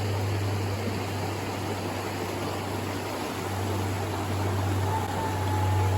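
Steady rush of water from a creek waterfall, an even hiss with a constant low rumble underneath.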